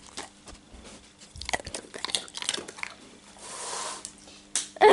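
A young Labrador mouthing and chewing right at the microphone: scattered small clicks and crunches, then a short hiss-like rush about three and a half seconds in.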